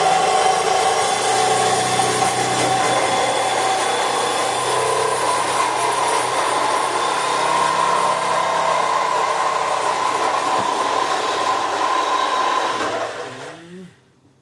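A motor-driven machine with a fan-like whine runs loud and steady, then is switched off about thirteen seconds in and winds down over about a second.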